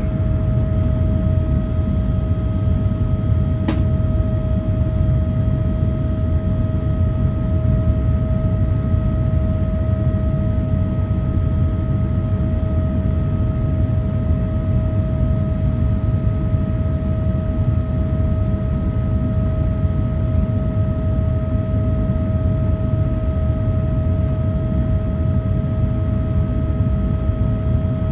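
Boeing 787-9 cabin noise during the climb after takeoff: the jet engines' steady low rumble with a constant mid-pitched whine over it. There is a single sharp click about four seconds in.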